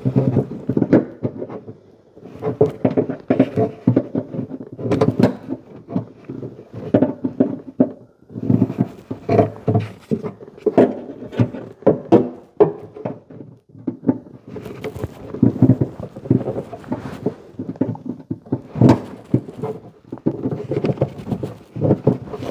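Irregular knocks, clicks and rattles of a hand and a screwdriver working against a car's sheet-metal body panel, pushing out plastic retaining clips.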